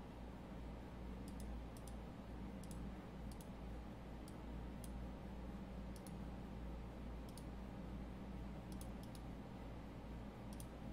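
Computer mouse clicking, a dozen or so short, sharp clicks at irregular intervals, over a faint steady low hum.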